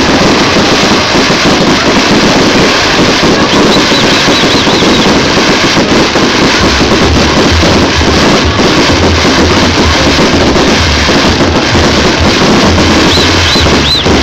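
Loud music played over a PA, distorted by an overloaded phone microphone, with a steady bass beat coming in about halfway through.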